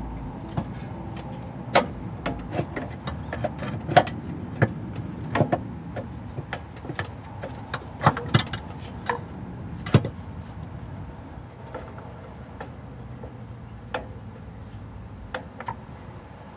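Metal clinks and knocks of a new transmission mount's steel bracket being worked into place by hand against the transmission and crossmember: a dozen or so sharp knocks in the first ten seconds, then a few lighter ticks.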